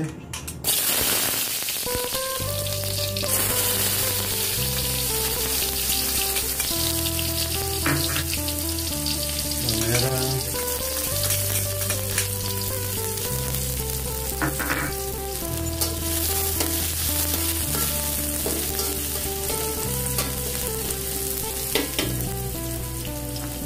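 Chopped garlic and onion sizzling in hot oil in an aluminium wok, starting about a second in, with a few scrapes and knocks of a metal spatula stirring them.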